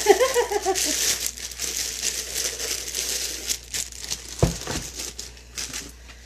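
Plastic packaging bag crinkling and rustling as a wax warmer is handled and packed back into its cardboard box, with a dull knock about four and a half seconds in; the crinkling thins out toward the end.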